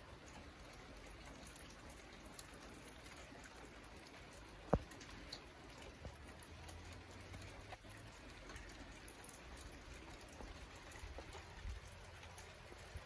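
Light rain dripping and pattering in scattered small ticks, with one sharp knock a little under five seconds in.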